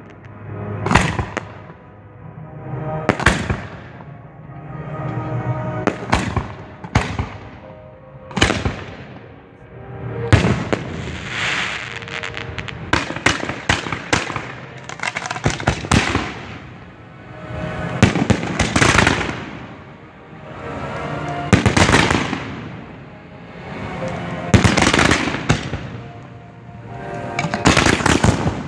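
Professional display fireworks fired at close range: repeated sharp bangs from shells and cakes, with crackling between them, coming in waves every few seconds.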